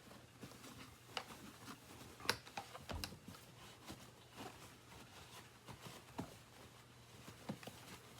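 Faint handling noise: light plastic clicks and taps as the stick vacuum is turned over and handled, with a low bump about three seconds in.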